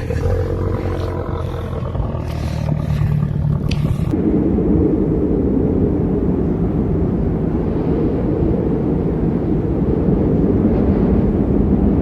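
A vehicle running with a steady low rumble. About four seconds in the sound changes abruptly to a duller, muffled rumble.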